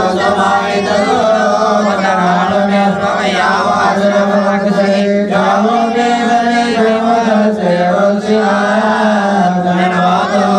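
A group of men chanting Arabic Mawlid verses in praise of the Prophet Muhammad, amplified through microphones. The melody winds over a steady low note that holds throughout.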